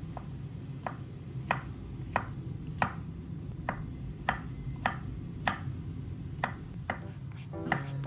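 Chef's knife slicing brown mushrooms on a wooden cutting board, each stroke ending in a sharp tap of the blade on the board, about a dozen taps at a steady pace of roughly one every two-thirds of a second.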